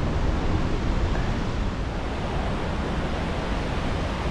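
Steady rushing noise of Wapta Falls, a large waterfall.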